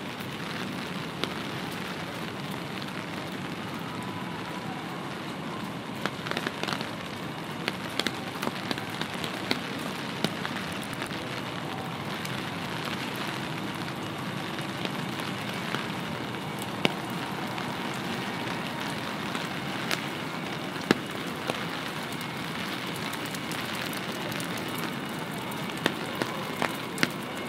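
Steady rain hissing, with irregular sharp raindrop ticks scattered through it and a few louder drips.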